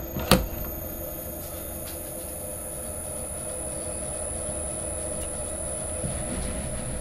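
Metal lathe running, its chuck spinning with a steady mechanical hum and whine. A single sharp knock comes just after the start.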